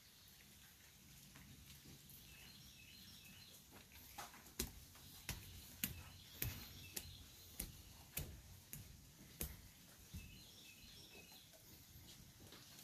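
Footsteps on wooden deck stairs: a run of about ten sharp knocks, roughly one every half second to second, in the middle of the stretch. Faint bird chirps come before them and again near the end.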